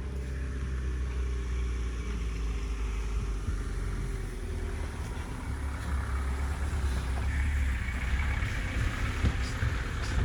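A car engine running close by, with a steady low rumble; road noise swells in the second half as the vehicle moves.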